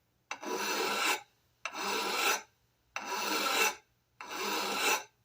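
Hand file drawn across an edge of a Sargent 409C hand plane's cast-iron body in four even strokes, each under a second, with short pauses between: chamfering the edges to take off sharp corners.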